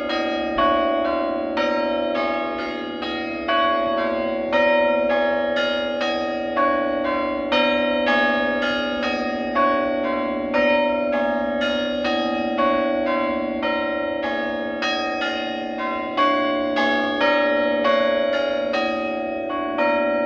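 Church bells change ringing: a steady, unbroken stream of strikes, a few a second, one bell after another, with the order of the notes shifting as the changes are rung.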